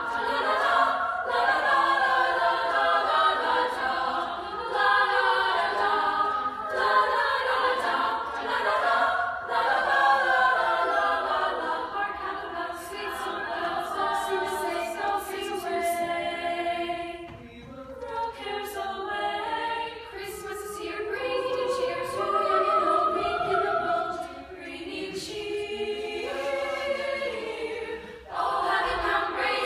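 Women's choir singing in harmony, with a softer passage about halfway through before the voices swell again.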